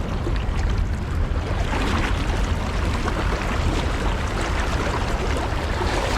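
Fast-flowing river current rushing steadily around a wading angler, with a low rumble underneath.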